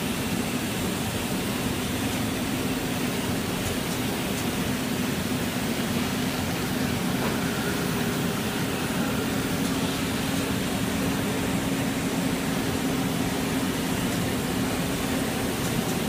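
Machinery of a running rubber hose extrusion line: a steady hum with an even hiss over it.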